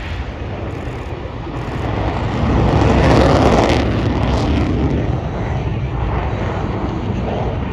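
Military jet making a pass over the airfield, its engine noise swelling to a peak about three seconds in and then fading as it climbs away.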